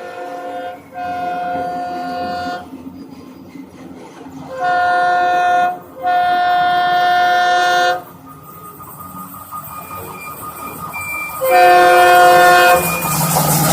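WDP4D diesel locomotive's multi-note air horn honking again and again: short and long blasts of a steady chord, the longest about two seconds. Near the end the noise of the oncoming train rises as it runs in.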